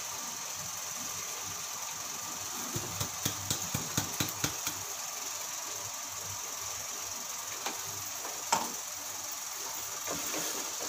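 A quick run of light metallic taps lasting about two seconds, about three seconds in, then two single clicks later: a small steel cup knocked against a pot to shake out ground pepper and cumin. Under it, a steady low hiss.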